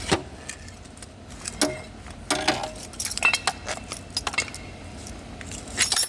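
Irregular metallic clicks and rattles of metal tools and connector parts being handled while a cable is worked loose from a jump-start lead connector.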